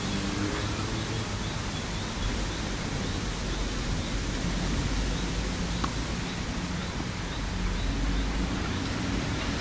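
Steady outdoor background hiss, like wind or distant traffic, with a low hum underneath. A faint high chirp repeats about three times a second through most of it, and there is one soft tick just before six seconds in.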